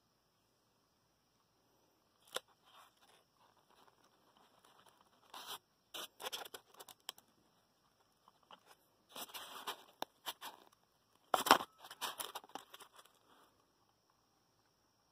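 Scraping, creaking and crackling as a hand grips the base plate of a low-temperature-difference Stirling engine that has frozen onto the ice beneath it and wrenches it loose. There is a loud crack about eleven seconds in as it breaks free.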